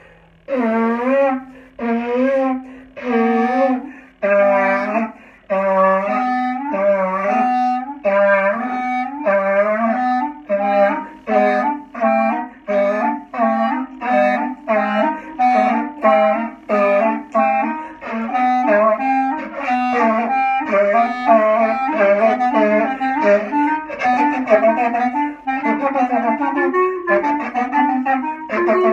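Clarinet duet: a standard B-flat clarinet and a short, silver, hacked clarinet play together, one taking a lower part and the other a higher part. It starts with a few short separate phrases and then goes into a continuous passage of quick notes.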